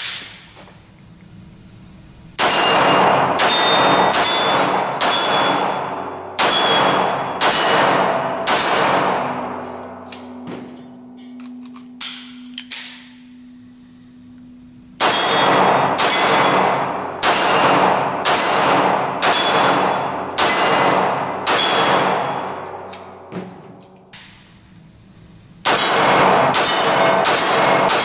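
SIG P230 .380 ACP pistol fired in three quick strings of shots, each sharp crack echoing off the concrete walls and followed by steel targets ringing on hits. The strings are broken by two pauses of a few seconds for magazine changes, with a few small clicks in the first pause.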